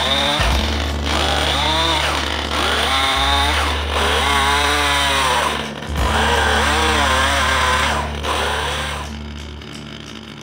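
Stihl chainsaw cutting around a log round to trim a bowl blank, its engine revving up and falling back in about six short cuts. The saw stops near the end.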